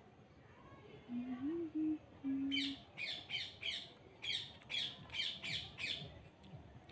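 A bird's repeated short calls, about ten quick squawks in two runs starting a few seconds in. Before them comes a short low hum, like a closed-mouth 'mm'.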